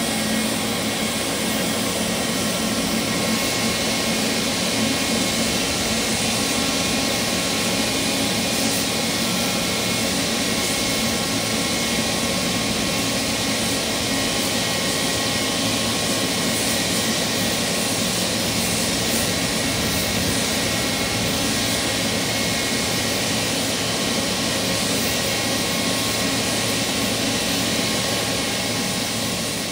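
Boeing 777-300ER's GE90-115B turbofan running steadily at ground idle, newly stabilised after a start with an external air starter because the APU is inoperative. It makes a steady rush of jet noise with several steady whining tones in it.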